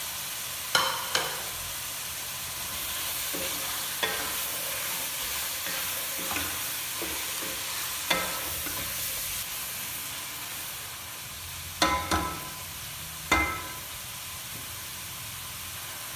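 Beef keema and boiled chickpeas sizzling in a pot while a wooden spatula stirs them: a steady frying hiss with scraping and about eight sharp knocks of the spatula against the pot, a few ringing briefly, the loudest near the start and near the end.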